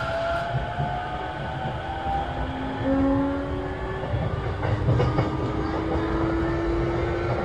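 JR East E233-7000 series electric train heard from inside motor car MoHa 232-7224. Over a steady rumble of wheels on rail, the traction motors whine in several thin tones that rise slowly in pitch as the train picks up speed. A short run of rail-joint clicks comes about five seconds in.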